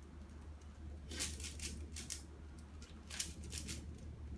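Plastic twisty puzzle being turned by hand: three short runs of quick faint clicking and clacking, over a low steady hum.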